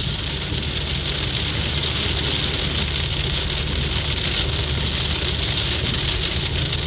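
Heavy rain pelting a moving car, heard from inside the cabin as a steady hiss over the low engine and road noise.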